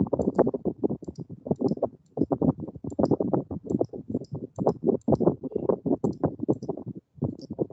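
Rapid clicking and tapping at a computer, heard as a dense run of dull thumps, about ten a second, with fainter sharp ticks above them.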